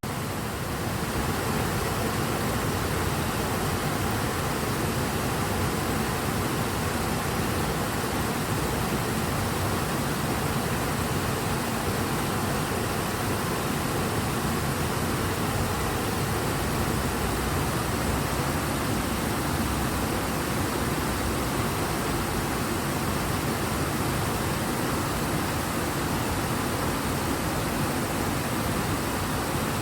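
The Ebro river flowing strongly: a steady, even rush of fast-moving water.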